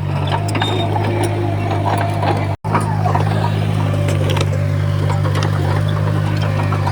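Bulldozer diesel engine running steadily under load, with scattered clanks and knocks from the tracks and the stone being pushed. The sound cuts out for a split second about two and a half seconds in.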